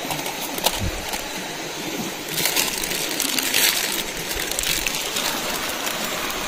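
River water running steadily, with a brief louder stretch of noise about two and a half seconds in.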